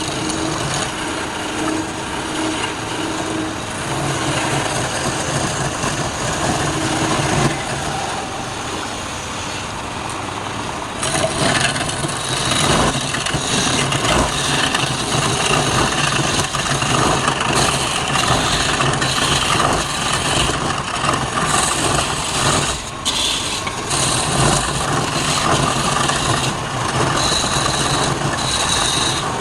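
Wood lathe running with a steady motor hum while a turning tool cuts into the spinning wood. The cutting grows louder and brighter about eleven seconds in.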